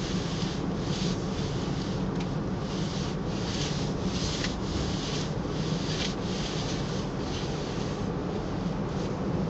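Steady low drone of a car driving, heard from inside the cabin, overlaid by a repeated swishing rub about every half second to second, like shiny PVC rain-suit fabric rubbing on itself or the seat.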